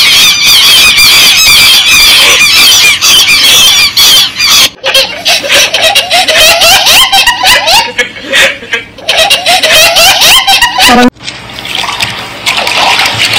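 High-pitched squealing in quick repeated calls for the first few seconds, then a young chimpanzee's rhythmic laughter. After a sudden cut near the end, quieter water sounds.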